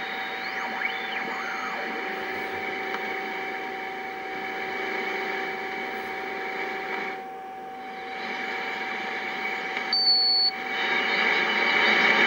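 Yaesu FRG-7 shortwave receiver hissing with band noise and steady whistling carrier tones as it is tuned. A few tones slide in pitch in the first two seconds, the noise dips about seven seconds in, and a short high beep sounds about ten seconds in.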